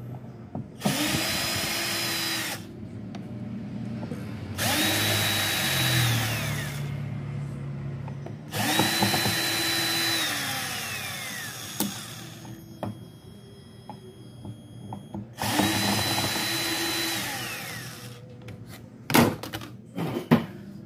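Cordless electric screwdriver backing out the screws of a Bluetooth speaker's control-panel faceplate. The motor runs four separate times, each time spinning up, holding a steady whine for two to three seconds and winding down. Near the end come a few sharp clicks and knocks as the panel is pulled free.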